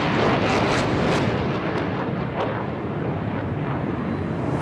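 Jet noise from the twin engines of a Sukhoi Su-30 fighter in a display manoeuvre: a loud, steady rumble with sharp crackles through the first couple of seconds.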